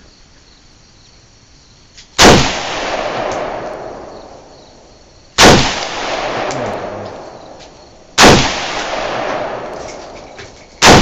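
Four rifle shots about three seconds apart, each a sharp crack followed by an echo that dies away over a couple of seconds.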